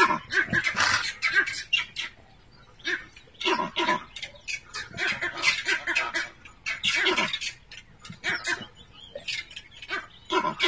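A leopard and porcupines scuffling at close quarters: harsh animal calls come in irregular bursts about once a second, some dropping in pitch, with quieter gaps between.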